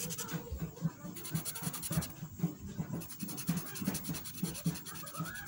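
Felt-tip marker scratching on paper as a patch is coloured in, in short quick back-and-forth strokes, about three a second.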